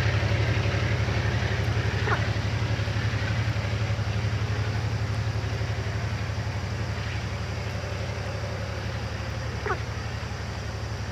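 A train's low rumble, slowly fading as it passes. Two short bird calls, each sweeping down in pitch, come about two seconds in and near the end.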